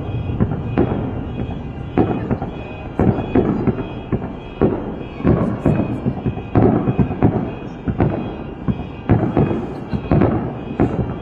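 Aerial fireworks shells bursting in quick succession, two or three booms a second over a continuous rumble.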